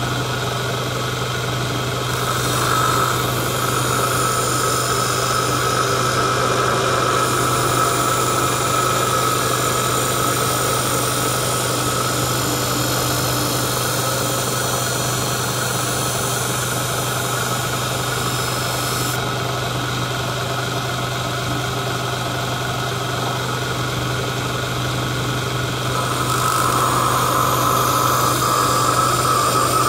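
Bench grinder running steadily with a steady motor hum, spinning an MDF stropping wheel charged with buffing compound while a knife edge is held against it to strop it. The sound gets a little louder about three seconds in and again over the last few seconds.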